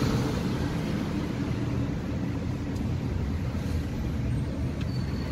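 Steady engine and road rumble heard inside the cabin of a car driving in city traffic.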